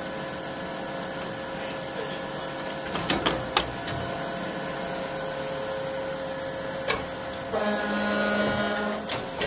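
Tsune TK5C-50GL CNC high-speed cut-off saw running through a cut cycle: a steady machine hum with a few sharp clunks, while its carbide-tipped blade cuts a one-inch steel bar in about three seconds. A louder, higher-pitched sound comes in near the end.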